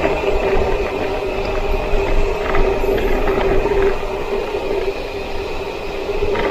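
Wind rushing over the microphone of a bicycle descending a hill at speed, with a steady whine from the rolling bike.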